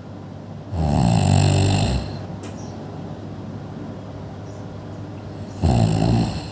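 Loud snoring: two snores about five seconds apart, each lasting about a second.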